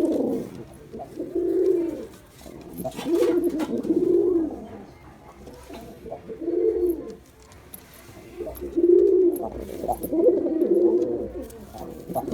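Male domestic pigeon cooing: a series of low, rolling coos, each about a second long, repeated every second or two.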